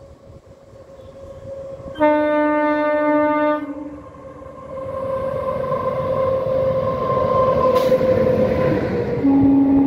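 Indian Railways electric locomotive horn blowing loudly for about a second and a half, two seconds in, and again briefly near the end. Underneath it the rumble of the locomotive and coaches on the rails grows louder as the train draws near and passes at speed.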